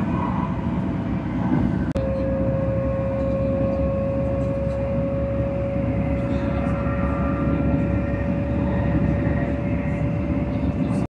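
A moving vehicle's steady low rumble. About two seconds in a steady whine joins it and climbs very slightly in pitch.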